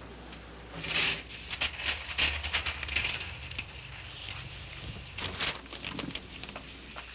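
Paper rustling and light knocks as papers and small objects are handled at a desk, in short irregular bursts over a low steady hum.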